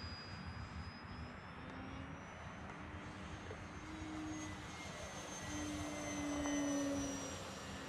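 Electric motor and propeller of a Multiplex AcroMaster Pro RC aerobatic plane whining in flight, its pitch shifting with throttle, growing louder about six to seven seconds in as the plane comes closer.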